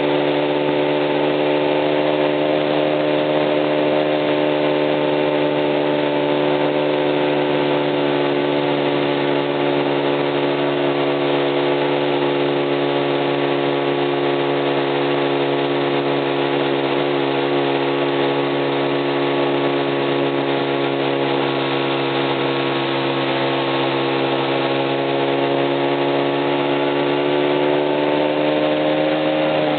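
Honda CB50's small single-cylinder four-stroke engine running steadily at a fast idle, its pitch drifting slightly lower, while making the abnormal engine noise under investigation.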